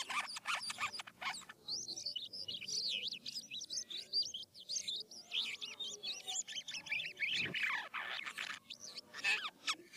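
A jalak kapas starling singing a long, fast, unbroken run of varied chirps and whistles, with rapid clicking rattles at the start and again near the end.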